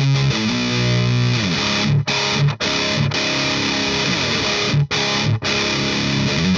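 High-gain distorted electric guitar played through a Rivera Knucklehead Reverb KR100 tube amp: held notes and riffs that stop dead for an instant four times.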